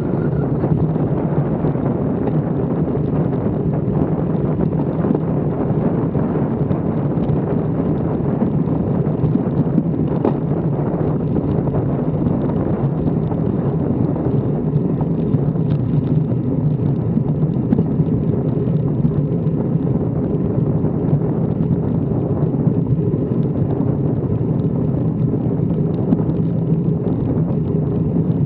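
Wind rushing over the camera microphone of a bicycle riding along a road, a steady loud rumble.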